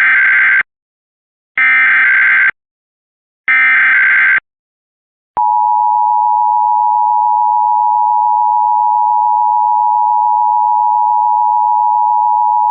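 Emergency Alert System SAME header: three short bursts of warbling digital data tones about a second apart, then, about five seconds in, the EAS attention signal, a loud, steady two-tone alert tone that announces the alert message to follow.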